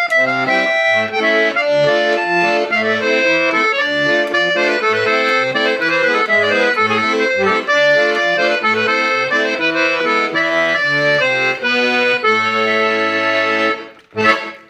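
Hohner Concerto 1 piano accordion playing a tune: a melody over a pulsing bass-and-chord accompaniment. Near the end a chord is held and dies away, followed by one short closing chord.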